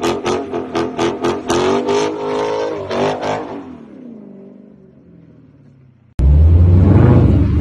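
Supercharged V8 of a Dodge Challenger SRT Hellcat in a burnout, stuttering on the rev limiter about four to five times a second, then revving higher and dying away as the revs fall. About six seconds in, a loud, deep V8 exhaust rumble cuts in suddenly.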